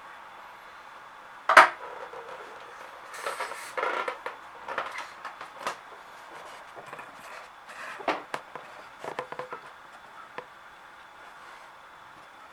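Scattered light clicks and taps of small objects being handled, the sharpest about a second and a half in and small clusters later. There is no steady running rhythm or air hiss.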